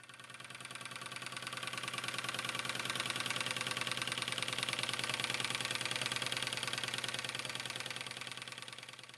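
Märklin 1904 compound live-steam toy traction engine running steadily with a fast, even beat. It fades in over the first couple of seconds and fades out near the end.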